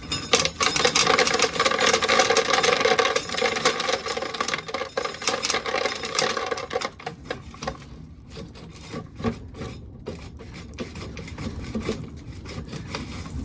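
Old corn sheller working with a rasping, rubbing scrape and a steady hum for about seven seconds, then slowing into irregular rattles and clicks.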